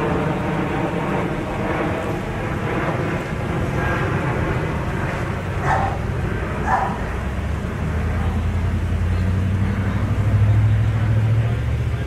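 Steady vehicle engine noise, with a deeper rumble growing louder in the second half, and two short dog barks about a second apart midway through.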